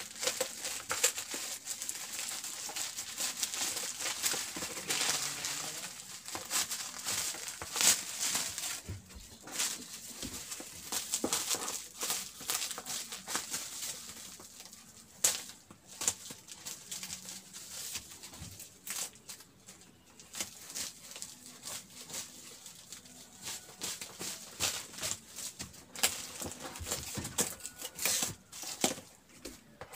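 Bubble wrap and plastic packaging crinkling and rustling in irregular bursts as a parcel is unwrapped by hand, busier at first and near the end, sparser in the middle.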